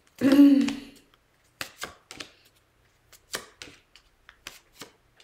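Oracle cards being drawn and laid down on the table: a dozen or so short, sharp snaps and taps, starting about a second and a half in.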